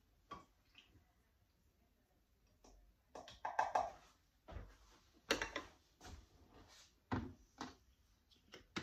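Scattered light knocks and clinks of kitchen handling: a glass blender jar being capped and an oil bottle set down on a stone countertop, with a short rustle about three and a half seconds in.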